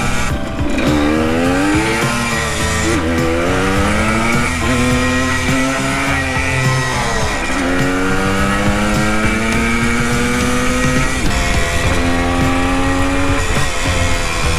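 Vintage Yamaha two-stroke enduro engine under way, its pitch climbing and dropping several times as the bike accelerates and shifts. The engine is down on power at the top end, which the rider puts down to the carburettor jetting.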